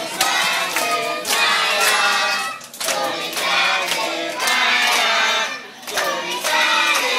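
A crowd of children and adults singing a song together while clapping along in time.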